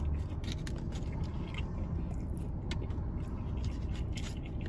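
Close-up chewing of crispy fried chicken tenders: irregular crunches and wet smacking clicks, over a low steady hum.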